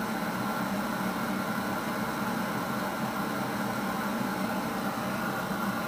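Steady background hum over hiss, unchanging, with no distinct events. This is the room or recorder noise picked up in a quiet pause.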